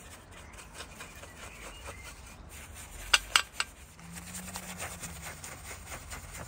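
Light metal clicks and rubbing as the crankshaft pulley is fitted back onto the crank nose of a Ford Focus ST170 engine, with a quick run of sharp metallic clinks about three seconds in.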